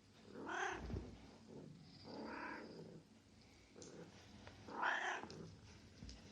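Domestic cat meowing three times, each call under a second long and fairly faint.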